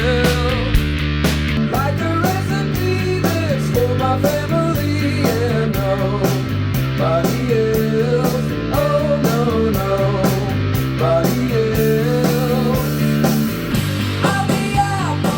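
Rock music with guitar, played back through powered bookshelf speakers for a sound test.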